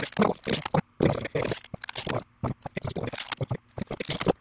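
Masking tape being pulled off the roll and pressed onto paper: a quick, irregular run of crackling and scraping with a few short pauses.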